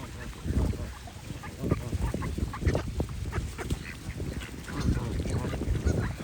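A flock of geese and ducks calling, many short honks and quacks overlapping at an irregular pace.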